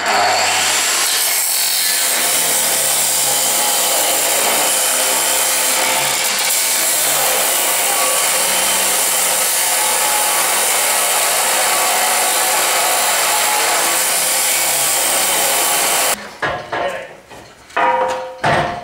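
Angle grinder cutting through a steel beam: a loud, steady, hissing grind that stops abruptly about sixteen seconds in, followed by a few knocks and clatters.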